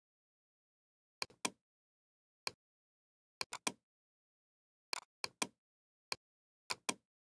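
Computer mouse button clicks, mostly quick double-clicks opening folders, about six groups of sharp clicks separated by dead silence.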